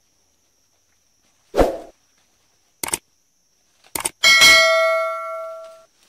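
Edited-in subscribe-button sound effect: a sudden thud, a few quick clicks, then a bell ding that rings and fades over about a second and a half.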